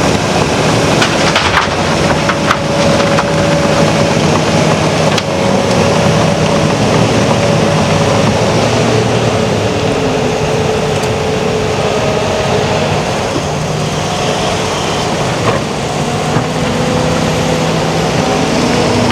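Diesel engines of heavy earthmoving machines working under load, a steady running sound with tones that shift up and down in pitch and a few sharp clanks in the first few seconds.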